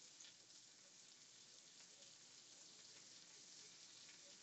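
Faint sizzle of sliced hickory smoked ham frying in a skillet, with a few small crackles.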